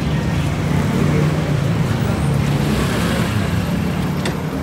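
Street traffic: vehicle engines running in a steady low rumble, with the hiss of passing road traffic.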